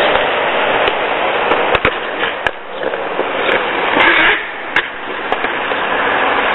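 Skateboard deck and wheels hitting paving slabs in a few sharp clacks, the loudest noisy scrape about four seconds in, over a steady rushing noise.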